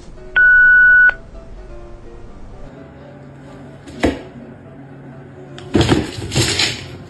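A loud electronic beep, one steady tone lasting under a second, over quiet background music. A sharp knock comes about four seconds in, and a short burst of noise near the end.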